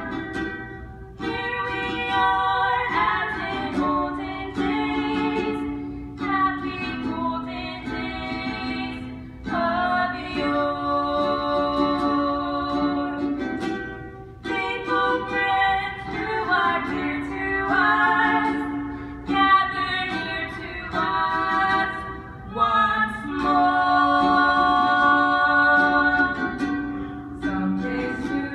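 Live singing of a Christmas song medley over instrumental accompaniment, the sung phrases breaking off every few seconds.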